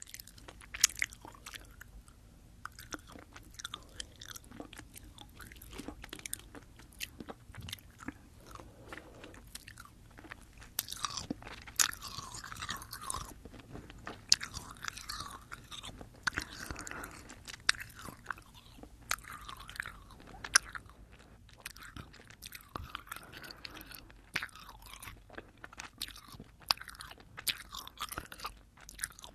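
Close-up chewing of sugar-coated Fini gummy candies, picked up by a binaural microphone: wet, squishy mouth sounds with frequent sharp clicks.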